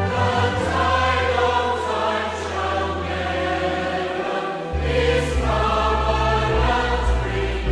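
A choir singing a hymn with instrumental accompaniment, sustained chords over a held bass that moves to a new chord a little past halfway.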